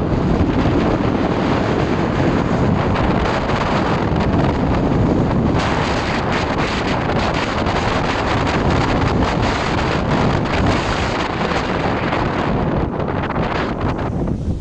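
Strong blizzard wind buffeting the microphone: a loud, steady rumble and hiss that eases a little near the end.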